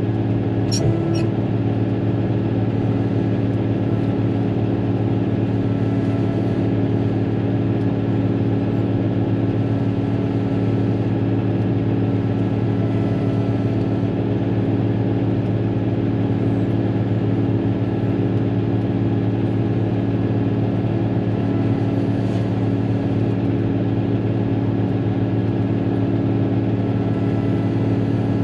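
Caterpillar motor grader's diesel engine running steadily at constant speed, heard from inside the cab.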